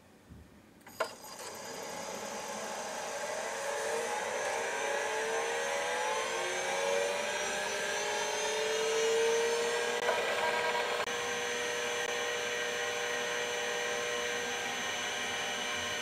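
Seagate ST-238R, ST-251 and ST-250R MFM/RLL hard drives switched on with a click about a second in. Their spindle motors spin up with a whine that rises in pitch for about ten seconds, with a few clicks along the way. They then run at full speed with a steady whine and a faint high tone.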